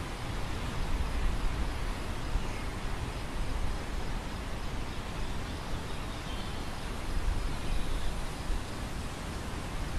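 Wind blowing over a grain field: a steady rushing hiss with a low rumble of wind on the microphone, swelling in gusts about a second in and again around seven seconds.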